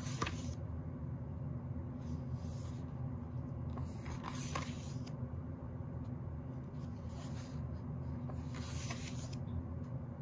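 Pages of a thick album photobook being turned by hand, a short paper rustle about every two seconds, five in all, over a steady low hum.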